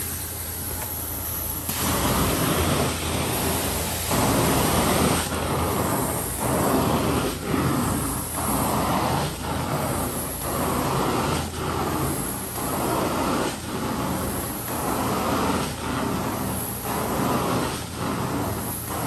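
Carpet-cleaning extraction wand drawing water back in strokes, its suction rush breaking off briefly about once a second at the end of each pass, over the steady hum of the cleaning machine.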